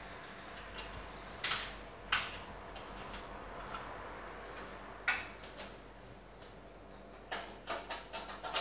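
Handling a plastic bottle of coolant: a few separate clicks and knocks as the cap is worked and the bottle is set down and picked up, then a quicker cluster of clicks near the end as it is lifted to the filling funnel.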